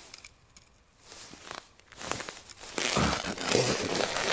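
Rustling of a winter jacket sleeve and crunching of snow as the ice angler reaches down to the hole by hand to haul up a fish. There are a few faint clicks first, and the noise gets much louder from about three seconds in.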